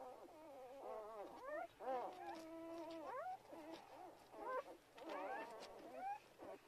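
Newborn German Shepherd puppies whimpering and squeaking while nursing: a run of high, wavering cries, with one longer, steady whine about two seconds in.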